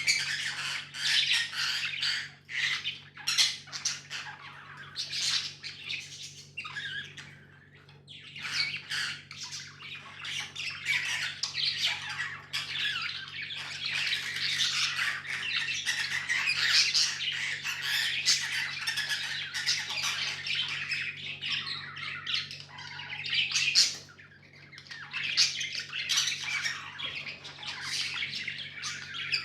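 Budgies chirping and chattering continuously, several calls overlapping, with short lulls about a quarter of the way in and again near the end.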